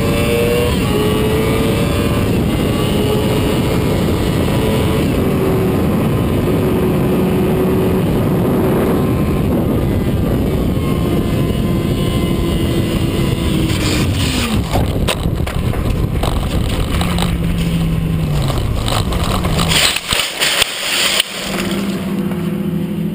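Yamaha YZF-R6 inline-four running at high revs under heavy wind noise at speed. About two-thirds of the way through, the engine pitch drops sharply and a run of knocks and scrapes follows. Near the end come loud bangs as the bike crashes into the gravel after a highside, then the engine keeps running at a low, steady pitch.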